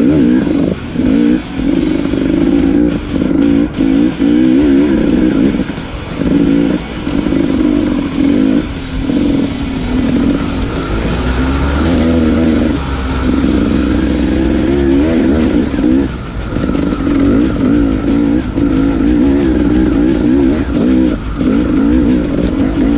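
Dirt bike engine revving up and down as the rider works the throttle, the note wavering and dropping off briefly every second or two. Heard from the rider's own bike.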